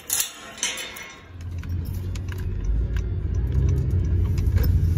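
Bunch of keys jangling and clinking against a metal gate latch for about a second. Then the low, steady rumble of a car heard from inside the cabin, growing louder as it drives.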